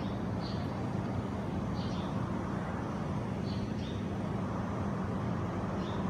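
Steady low machinery hum at an even level, with a few faint, short high chirps at irregular intervals.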